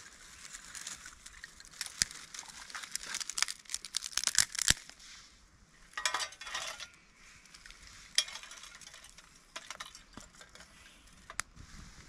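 Dry twigs being snapped by hand and pushed into a small burning wood stove: a dense run of sharp cracks and crackles for a few seconds, a rustling burst, then a couple of single loud snaps.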